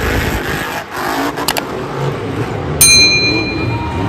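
A motor-vehicle engine sound running steadily, with two quick clicks about a second and a half in, then a bright ringing ding near three seconds in that rings on for about a second.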